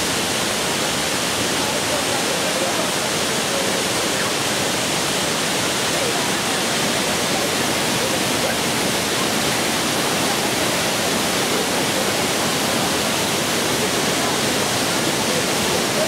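Waterfall: the steady, even rush of falling water, unbroken throughout.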